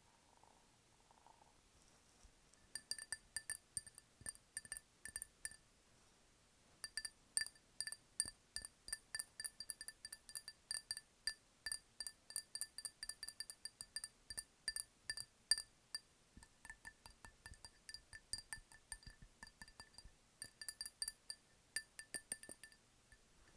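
Rapid tapping on a glass candle jar, each tap a short bright clink that rings at the same pitch. The taps come at about three to four a second in three runs, starting about three seconds in, with short pauses near six and sixteen seconds.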